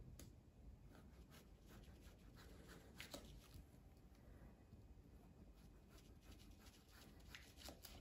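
Faint, irregular taps of a knife cutting thin slices of zucchini and striking a plastic cutting board, roughly one or two a second, with one louder tap about three seconds in.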